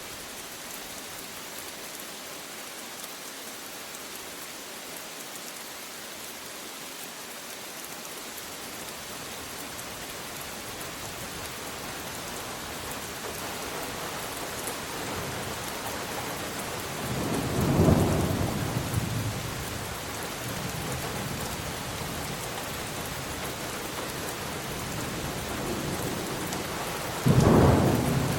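Steady rain falling, with thunder: a rumble builds through the middle and peaks loudly, then a second, sudden clap of thunder strikes near the end.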